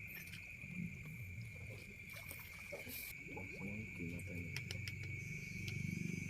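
Crickets chirring steadily at night as a continuous high-pitched trill, over uneven low rumbling and sloshing that grows louder near the end.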